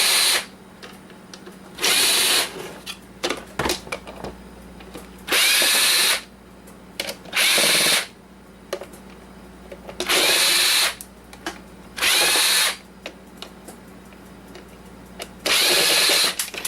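Cordless power drill-driver running in short bursts, about seven times, each spinning up in pitch, as it backs screws out of a plastic coffee maker housing. Between bursts there are small clicks and rattles of screws and plastic parts.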